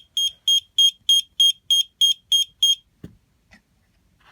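Photoelectric smoke alarm sounding its rapid, high-pitched alarm beep, about three beeps a second, set off by SmokeSabre test smoke. The beeping stops about three seconds in, followed by a soft knock.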